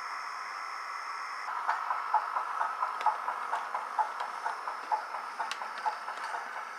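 Soundtraxx Tsunami2 sound decoder in an HO scale brass Southern Pacific P-10 4-6-2 model playing steam exhaust chuffs through its small speaker as the locomotive runs, about four chuffs a second, starting about a second and a half in. Before that a steady hiss, and scattered light clicks over the chuffing.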